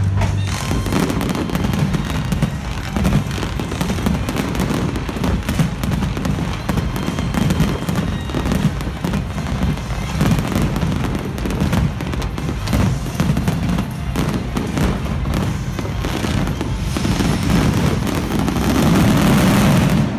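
Fireworks: a dense, continuous barrage of bangs and crackles over a deep rumble, getting heavier near the end.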